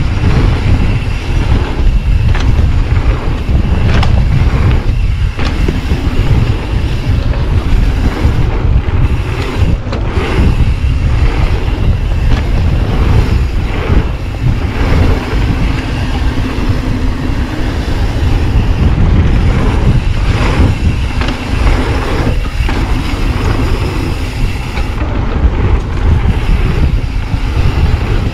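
Mountain bike rolling fast down a dirt flow trail: heavy wind buffeting the action camera's microphone over steady tyre rumble, with scattered knocks and rattles from the bike going over bumps.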